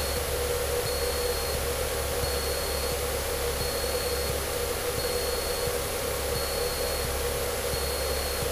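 Cessna 152's four-cylinder Lycoming engine and propeller droning steadily in the cockpit at level cruise power, a constant hum under an even wash of noise. A faint high beep repeats about once a second behind it.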